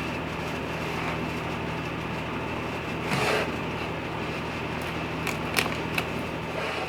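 A steady machine hum and hiss, with a brief swish about three seconds in and a few light clicks near the end.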